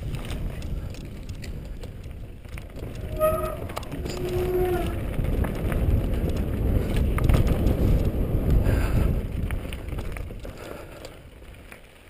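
Mountain bike riding along a dirt singletrack: a steady rumble of tyres on dirt and bike rattle, getting louder and rougher in the middle and easing off near the end.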